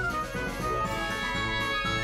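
Background music: a light instrumental tune.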